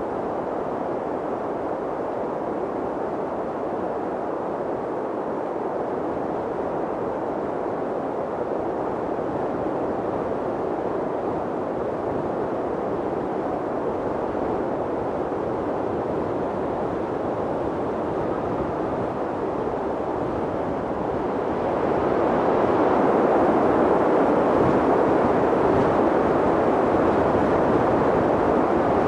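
Mountain wind blowing steadily, a deep rushing noise that swells louder about three quarters of the way through.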